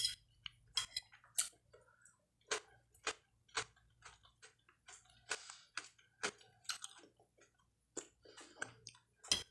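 Close-miked eating sounds: chewing, with irregular sharp clicks of a metal fork against a glass plate, one louder click near the end.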